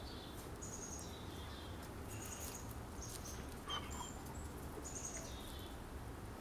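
Faint, high, scattered chirps of small birds over a steady low outdoor background rumble, with one slightly lower, brief call a little before four seconds in.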